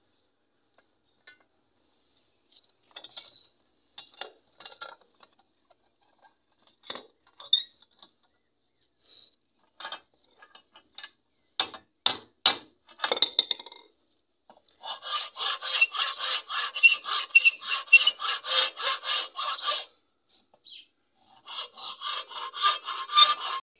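Hand saw cutting across a wooden hammer handle held in a vise, in two runs of rapid back-and-forth strokes in the second half. Before that come scattered faint scrapes and a few sharp knocks.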